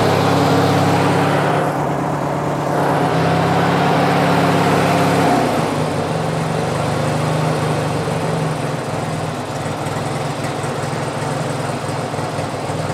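Briggs & Stratton opposed-twin engine of a Craftsman LT1000 lawn tractor running steadily, settling to a lower, quieter idle about five seconds in. It idles well on a swapped-in Nikki carburetor, but only with the choke lever nearly all the way on.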